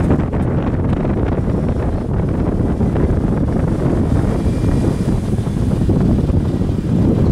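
Strong wind buffeting the microphone, heard as a loud, steady low rumble.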